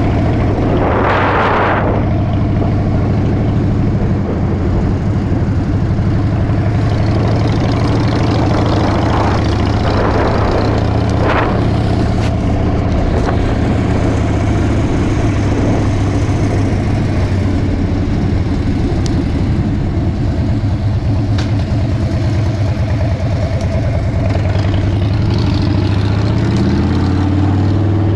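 Harley-Davidson V-twin motorcycle engine running steadily while riding, a continuous low drone, with a few brief rushes of noise over it.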